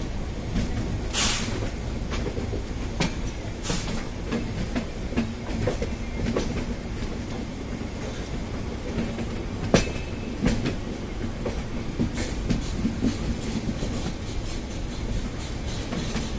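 Express passenger train running, heard from aboard: a steady low rumble with wheels clattering over rail joints, and a few louder sharp knocks.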